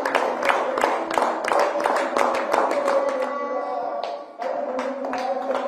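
A small group clapping, with music of steady held notes under it; the clapping thins out about halfway and the music carries on.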